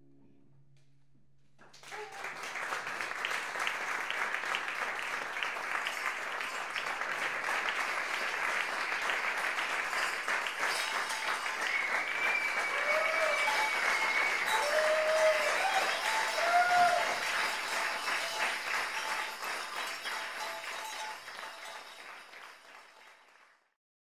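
Small audience clapping. The applause breaks out suddenly about two seconds in, holds, and fades away near the end.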